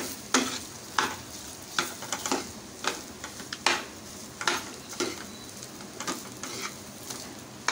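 A metal spoon scraping and knocking against a steel pan as mashed potato stuffing is stirred. About a dozen uneven strokes, one every half-second to second, over a steady low hiss.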